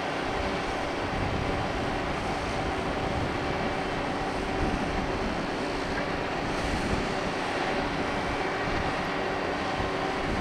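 Steady low machinery hum from a large cruise ship, several droning tones over a constant rush, with wind rumbling on the microphone.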